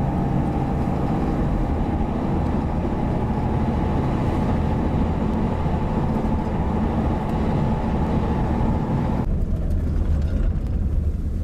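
Steady storm wind noise over a vehicle's low rumble, with a faint whistle; about nine seconds in the higher hiss cuts off abruptly, leaving mostly the low rumble.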